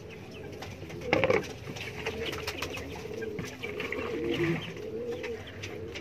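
Domestic pigeons cooing repeatedly, with a brief louder sound about a second in.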